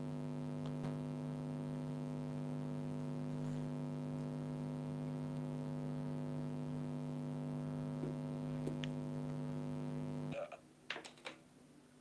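Steady electrical hum with a buzzy stack of overtones, unchanging in loudness, that cuts off suddenly about ten seconds in; a few faint clicks follow.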